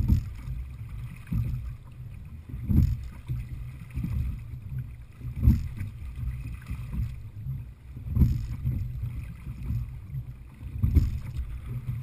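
Sculling boat being rowed at a steady stroke: a low knock from the oars and rigging with each stroke, about every two and three-quarter seconds, over steady wind and water noise.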